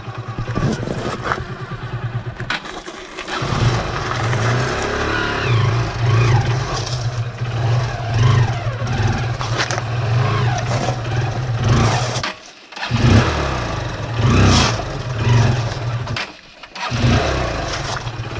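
Motorcycle engines running at low speed, rising and falling, as the bikes ride down a steep rocky off-road track. The sound drops out briefly twice in the second half.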